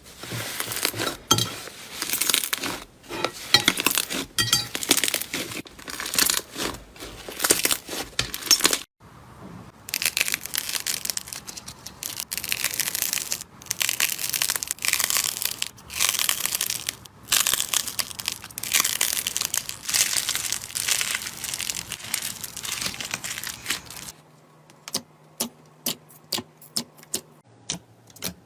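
Slime being squeezed and stretched by hand, with dense crackling and crunching, broken by a short pause about nine seconds in. Near the end this gives way to a string of sharp separate clicks, about two a second.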